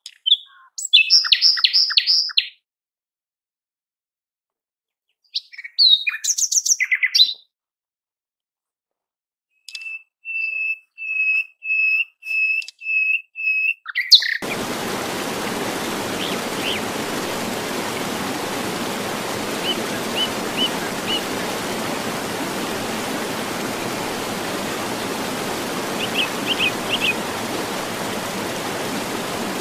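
Bird chirps and whistles in short bursts with silence between them, including a run of about seven repeated whistled notes. About halfway through a steady hiss of noise takes over, with a few faint chirps over it.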